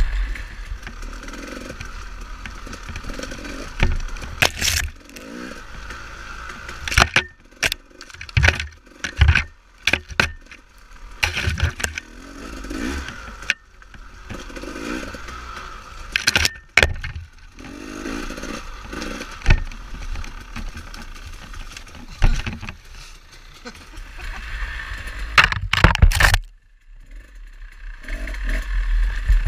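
Dirt bike engine revving up and down in repeated swells as it is ridden over rough trail, with sharp knocks and rattles from the bumps throughout. The engine note drops away suddenly about three seconds before the end, then comes back.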